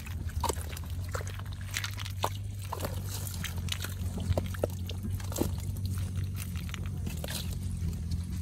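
Hands sorting a fresh catch of small fish and snails in a wet ring net: scattered clicks and taps of snail shells and wet slaps and flicks of fish in the mesh, over a steady low hum.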